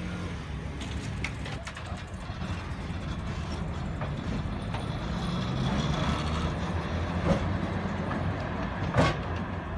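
Tram running on street track: a steady low rumble of wheels on rail, with a few sharp clacks as the wheels pass rail joints or points, the loudest near the end.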